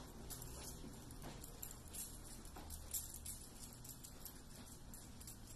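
Faint footsteps and phone-handling taps from someone walking across an empty room, over a low steady hum.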